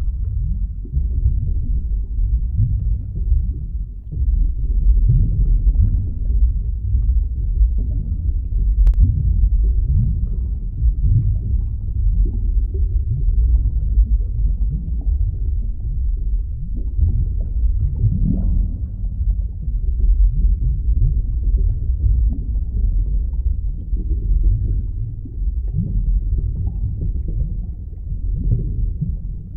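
Underwater ambience sound effect: a continuous deep, muffled rumble with nothing high in it, swelling and easing in slow surges. A faint click comes once, about nine seconds in.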